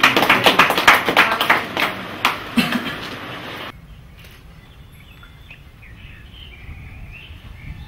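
A small group clapping, which stops abruptly about three and a half seconds in; after that, birds chirping faintly.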